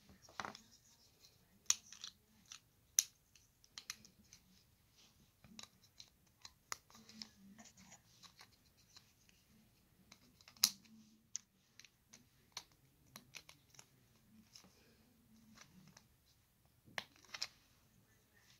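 Plastic LEGO bricks being handled and pressed together by hand: irregular small clicks, snaps and scrapes, with a few sharper snaps standing out, one about ten seconds in and a pair near the end.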